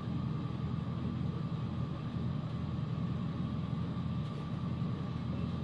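Toyota Starlet Glanza (EP91) engine idling steadily, heard from inside its stripped cabin.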